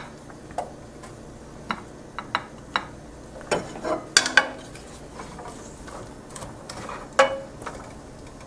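Chopped red onion frying in oil in a non-stick frying pan with a faint steady sizzle. About a dozen short clicks and knocks of a wooden spatula and the pan being handled, most in the first half and one more about seven seconds in.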